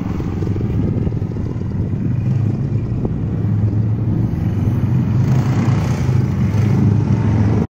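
A Manco Big Cat monster mini bike's 10 hp Tecumseh HM100 single-cylinder engine running under throttle off-road. It grows louder from about five seconds in as the bike comes back toward the camera, then cuts off suddenly near the end.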